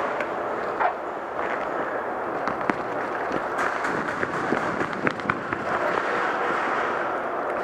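Several scattered sharp pops of semi-automatic airsoft gunfire, clustered in the middle, over a steady rustling hiss.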